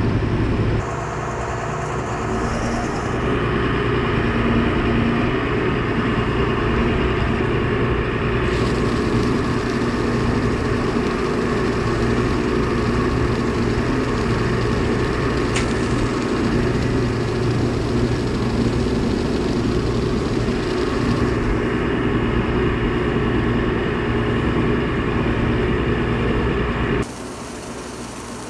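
Supreme vertical feed mixer wagon running, its auger turning and chopping a load of feed with a steady mechanical drone. The sound changes abruptly a few times and drops much quieter near the end, where fine meal pours into the tub from an overhead spout.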